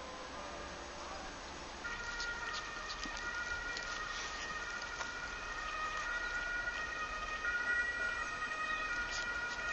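A cat eating from a bowl at close range: small scattered clicks of chewing and licking. Over it runs a high, steady whistling tone that steps back and forth between a few pitches.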